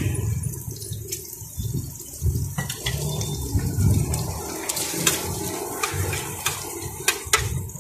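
Metal spatula scraping and tapping against a large frying pan of noodles in a scattering of sharp clicks, over a low steady rumble.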